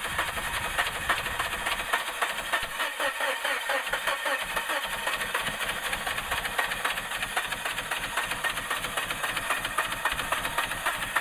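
Suzuki Grand Vitara engine cranking over on its starter with a steady, even rhythm and not catching: a no-start after a water pump replacement.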